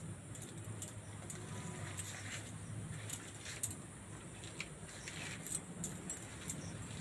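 Ripe palmyra palm fruit rubbed against an upturned woven bamboo basket to scrape out its pulp: soft, irregular scratching and crackling of the fibres on the weave.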